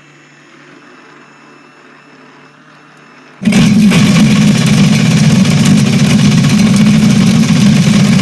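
Four-stroke jet ski engine running loud and steady, starting abruptly about three and a half seconds in, while antifreeze is run through the motor to winterize it.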